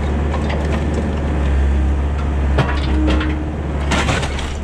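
Compact excavator's diesel engine running steadily under load, with cracking and crashing of wood and sheet-metal debris as the bucket and thumb grab into a demolition pile. The loudest crashes come about four seconds in.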